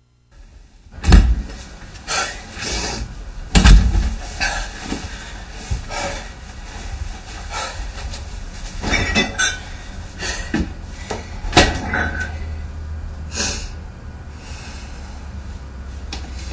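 Irregular knocks and bumps over a low steady rumble. The loudest knocks come about a second in and near four seconds, with another sharp one late on.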